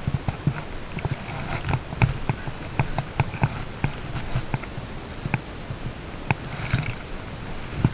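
Irregular sharp clicks and soft rustling as a fly rod and fly line are handled close to the microphone.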